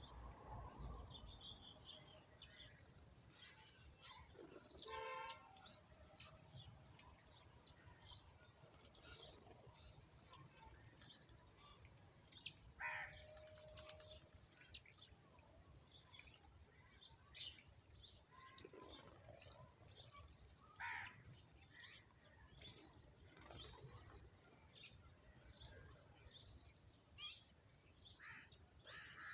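Sparrows chirping: a faint, dense stream of short, high chirps, with a few louder, lower bird calls standing out now and then.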